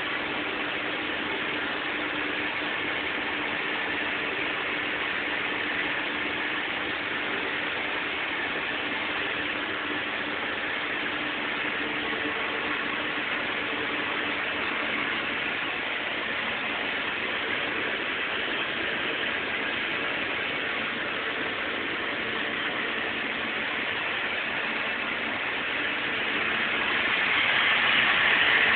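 Brother HS50A CNC wire EDM machine running: a steady hiss with a faint low hum, growing louder near the end.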